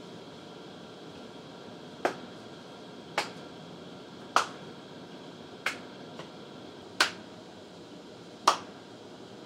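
One person clapping slowly: six sharp single claps, roughly one every second and a quarter, over a steady background hiss.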